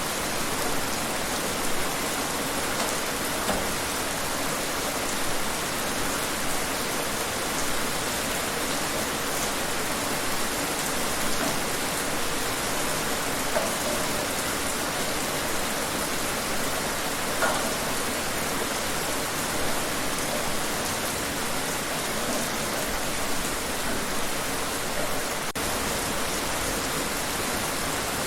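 Steady rain falling: an even hiss with a few louder individual drops standing out here and there.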